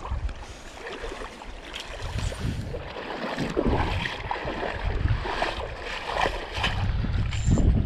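Shallow river water splashing and sloshing, with scattered knocks, as an angler reels in a hooked fish. Wind rumbles on the microphone, growing stronger near the end.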